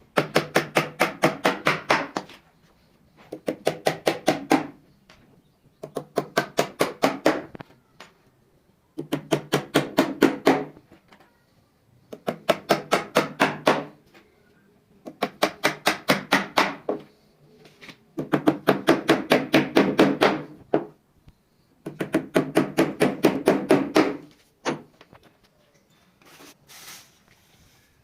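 Work on wood with a hand or power tool, heard as repeated bursts of rapid, even knocking. About eight bursts run about two seconds each, with short pauses between, and a low hum sounds during each burst.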